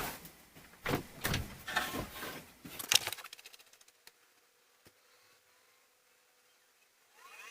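A run of knocks and thumps for about three seconds, then near quiet with a faint steady hum and a couple of small clicks; a brief warbling chirp near the end.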